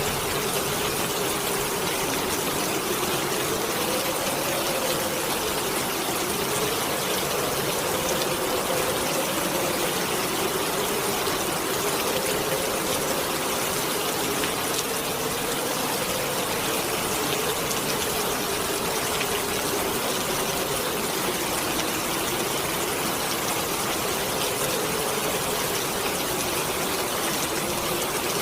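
Heavy rain hissing steadily, with the wind howling over it in a low moaning tone that slowly rises and falls every few seconds.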